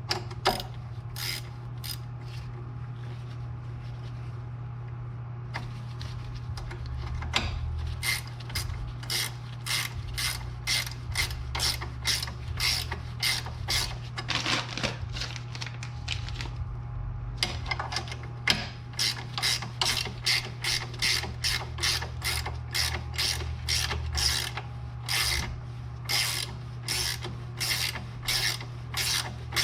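Hand ratchet clicking through repeated short strokes, sparse at first and then in quick steady runs from about a quarter of the way in, with a brief pause past the middle. It is running a nut down onto a new outer tie rod end. A steady low hum runs underneath.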